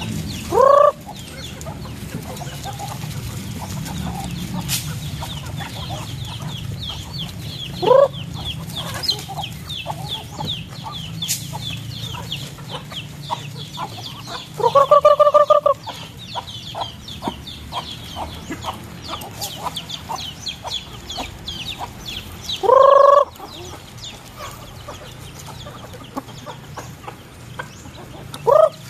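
Chickens feeding: five loud, short squawking calls, the longest about halfway through, over a constant fast high chirping.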